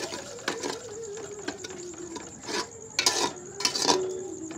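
Long metal spoon stirring and scraping in an aluminium cooking pot of frying onion-and-spice masala just loosened with a little water, with a faint sizzle. Sharper clinks come about three seconds in and just before four seconds. A faint tone slowly falling in pitch runs underneath.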